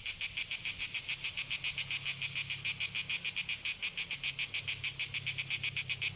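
Cicada singing: a steady, high, rasping buzz that pulses rapidly, about eight times a second.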